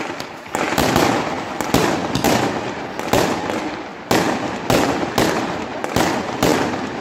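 Aerial fireworks going off in quick succession: sharp bangs about twice a second, with continuous crackling between them as rockets rise and burst.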